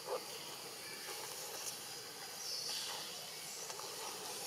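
Quiet outdoor ambience: a steady hiss, with one short soft sound just after the start and a brief high hiss a little past two and a half seconds in.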